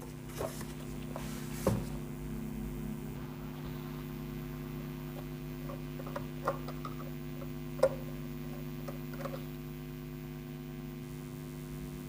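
Steady electrical mains hum, with a few faint clicks and taps as a screwdriver tightens a wire into the bell timer's screw terminal block, the sharpest near 2 and 8 seconds in.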